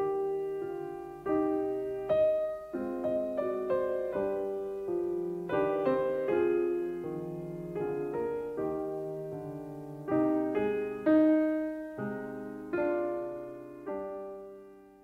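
Gentle solo piano music: single notes and chords struck one after another, each ringing and decaying, fading out near the end.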